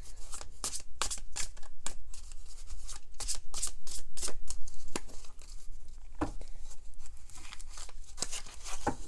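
A deck of tarot cards being shuffled by hand: a quick run of cards slapping and flicking together, about three or four strokes a second, busiest in the middle.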